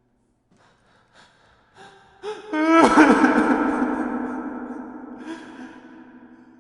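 Heavy metal dungeon door: a few faint clicks of the latch, a short creak falling in pitch, then a loud slam whose ringing clang echoes and fades over about three seconds.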